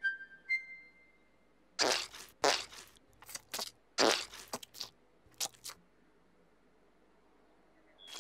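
Squelching sponge sound effects: a run of short wet squishes, about seven of them over some four seconds.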